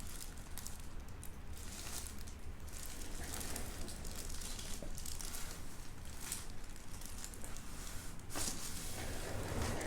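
Chiropractic neck adjustment: soft rustling and handling sounds as the patient's head and neck are positioned on the treatment table, with a few short clicks and a sharper crack about eight seconds in.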